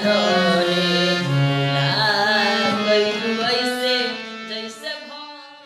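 A man singing to his own harmonium accompaniment, the instrument holding reedy sustained notes under the melody. The sound fades away over the last second or two as the song ends.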